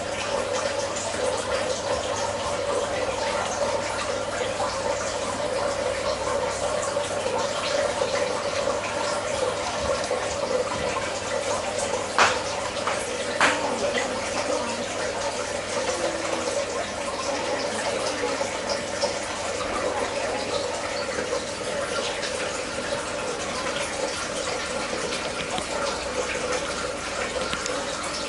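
Aquarium water running steadily, an even rushing with a constant hum beneath it. Two sharp clicks come about halfway through.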